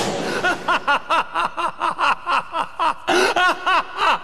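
A person laughing: a quick cackle of short high 'ha' pulses, about five a second, with a short break about three seconds in. It opens with the tail of a hissing noise.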